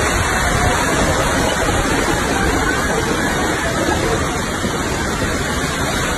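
Floodwater rushing fast along a street: a steady, loud rush of water.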